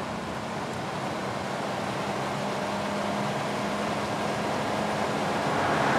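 Car driving along a road: steady engine and tyre noise that grows gradually louder and swells near the end.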